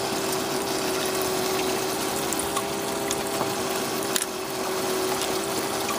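Desert Fox spiral gold-panning wheel running: a steady electric hum from its motor and water pump, with water spraying and trickling over the wheel. A faint click about four seconds in.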